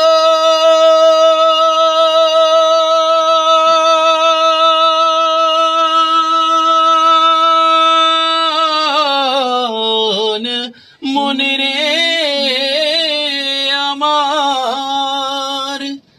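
A male voice singing a Bengali Islamic gazal unaccompanied. It holds one long steady note for about eight seconds, then breaks into wavering, ornamented melodic runs, with a short breath about eleven seconds in.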